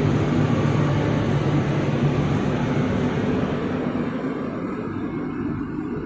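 Steady low rumble of a passenger ship under way, heard from its open deck, with a low hum in the first two seconds or so; it eases off over the last two seconds.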